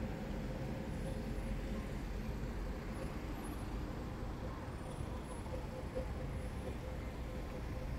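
Cars moving slowly through a busy parking lot: a steady low traffic rumble with a constant hum running under it.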